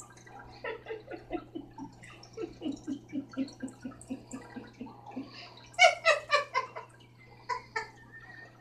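Stifled human giggling: a quick run of short chuckles, then a louder burst of laughter about six seconds in, over a low steady hum.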